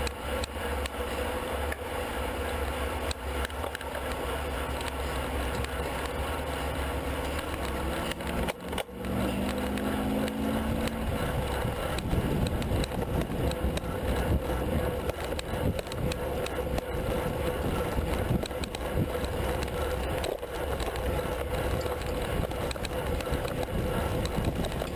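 Road racing bicycles at speed in a bunch sprint: tyres on tarmac, drivetrains and wind rush on a handlebar-mounted camera, a steady mixed noise that turns louder and rougher about twelve seconds in.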